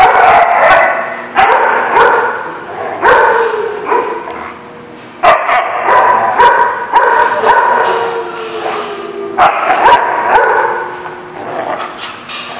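Two dogs, a husky-type dog and a blue merle dog, barking and vocalizing while play-fighting. The pitched calls come in repeated bouts of about a second each, with a short lull around four seconds in.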